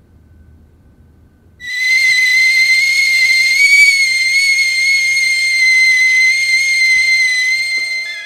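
Stovetop kettle whistling at the boil: one loud, high, steady whistle with a slight waver that starts suddenly about a second and a half in and fades near the end.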